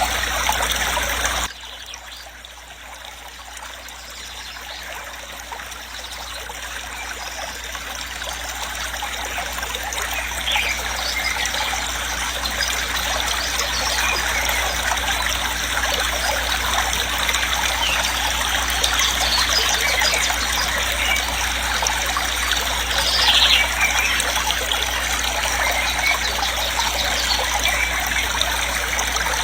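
Waterfall rushing: a steady noise of falling water. About a second and a half in it drops suddenly, then swells back to full over the next ten seconds or so.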